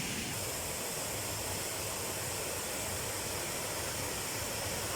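Steady rushing of a waterfall's falling water, an even hiss with no break.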